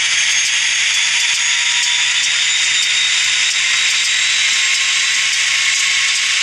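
Simulated diesel locomotive engine sound from an ESU LokSound sound decoder, played through the model Kato SD45's small speaker while it is throttled up. It runs steadily as a hissy, thin drone with a faint whine and no deep bass.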